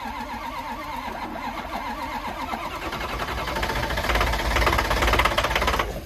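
Starter cranking a cold Ford Power Stroke diesel with ether in the intake. The cranking turns louder and heavier over the last two seconds, then stops suddenly.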